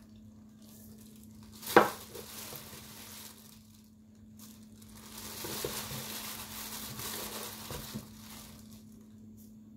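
Kitchen handling sounds as frozen chopped dill is put onto a bowl of cold buttermilk soup: one sharp knock about two seconds in, then a few seconds of soft rustling, over a steady low hum.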